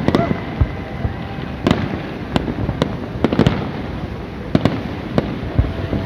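New Year fireworks display: a continuous rumble of distant explosions with sharp, irregular bangs going off several times a second.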